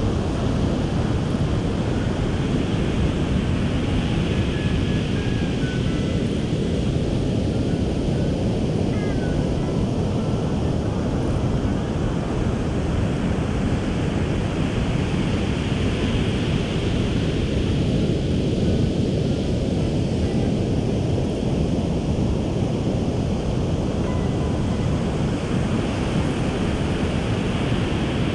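Ocean surf breaking on a beach, with wind buffeting the microphone: a steady low rumble, and the hiss of the waves swells and eases about every eleven seconds.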